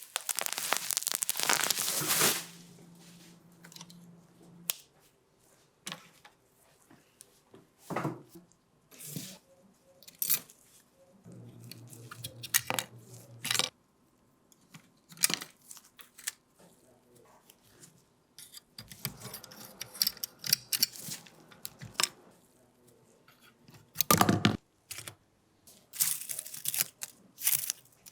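Intermittent hands-on workshop noises: sharp clicks and knocks, short tearing and scraping sounds, and a couple of brief low hums, separated by quiet gaps.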